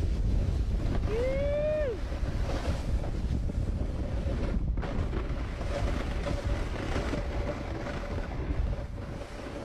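Wind rushing over the camera's microphone as a snowboarder rides down a slope, a steady low roar. A short rising-and-falling voice call comes about a second in.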